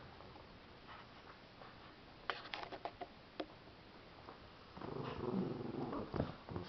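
A small dog growling in play over a stuffed toy for about a second and a half near the end, after a few light scratching clicks.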